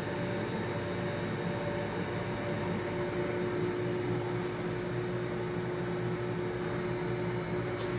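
A machine running with a steady, even hum, a few constant tones sitting over a noisy whir.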